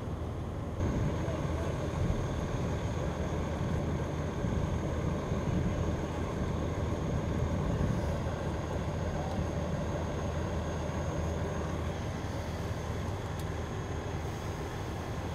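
Steady drone of running engines at a crash scene, with a thin steady high whine above it. It gets louder about a second in.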